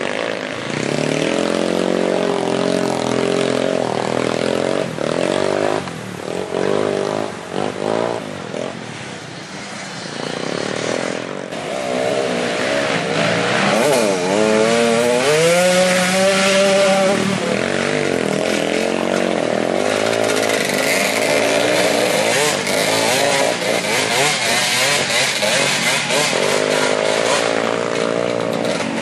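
Enduro dirt-bike engines running at high revs as the bikes ride through a shallow stream, with water splashing around the wheels. About halfway through, one engine revs up sharply and drops back.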